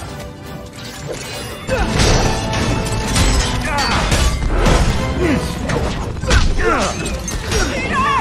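Action-film soundtrack: music under repeated crashes and impacts, with sliding squeals over the top, growing louder about two seconds in.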